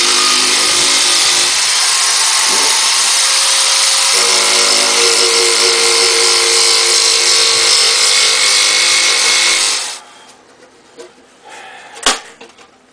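Corded electric drill with a sanding disc running steadily against a wooden cabin frame, its motor note shifting about four seconds in. The sound stops abruptly near ten seconds, and a single sharp click follows near the end.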